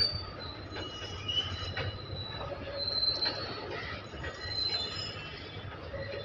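Indian Railways goods train's wagon wheels squealing as the rake rolls past, with several thin high-pitched tones that come and go over a steady low rumble and a few light knocks of wheels on the rails.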